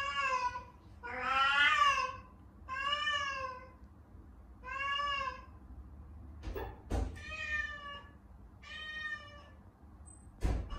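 A mother cat meowing over and over: six drawn-out meows, each rising and falling in pitch, about every two seconds, the loudest near the start. A few dull thumps come in the second half.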